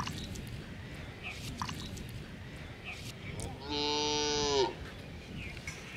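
A cow mooing once, a single call about a second long starting about three and a half seconds in, pitch dipping as it ends. Under it, faint wet squelching from a stick and hand working a muddy, water-filled hole.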